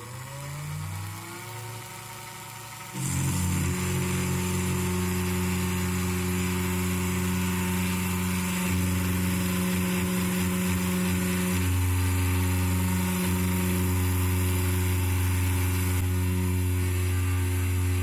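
Desktop CNC router spindle spinning up with a rising whine, then about three seconds in the machine gets much louder and runs steadily as the end mill routes the board cutout through FR4 circuit board, its pitch shifting a few times as the cut goes on.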